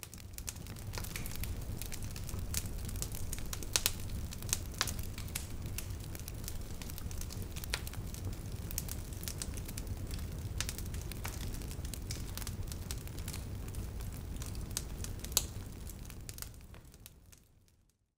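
Split-log wood fire crackling and popping in a stone fire pit, many sharp snaps over a steady low rumble. It fades in at the start and fades out near the end.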